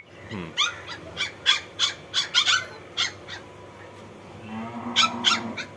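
Very young husky-type puppies crying: a quick run of short, high-pitched squeals, then two or three more near the end.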